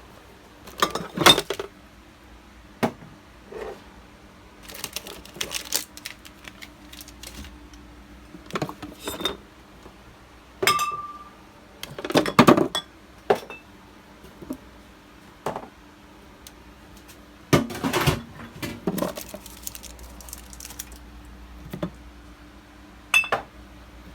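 Irregular clinks, knocks and rattles of bottles, jars and containers being handled and set onto refrigerator shelves, in scattered clusters with a brief ring around the middle, over a faint steady hum.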